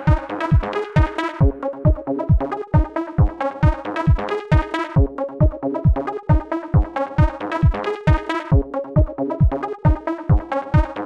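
Electronic dance music with a steady kick drum at a little over two beats a second under synthesizer chords.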